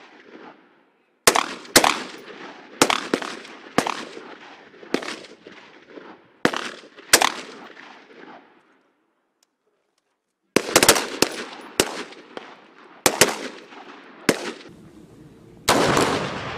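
Military rifle firing single shots outdoors, about one a second, each shot with an echoing tail. After a pause of about two seconds come three quick shots and a few more spaced ones, and near the end a louder, longer blast with a rushing tail.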